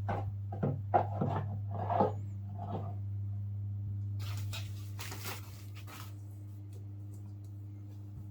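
Packaging and unboxed items being handled: short knocks in the first few seconds, then a rustle of paper or plastic. A steady low electrical hum runs underneath.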